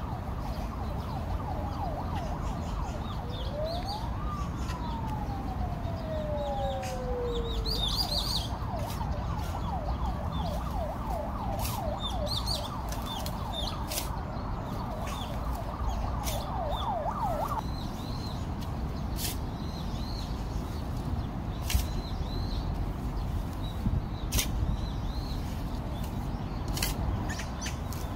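Emergency-vehicle siren: one slow wail rising then falling, then a fast yelp that stops about two-thirds of the way through. Birds chirp over a steady low background noise, and there are a few sharp knocks near the end.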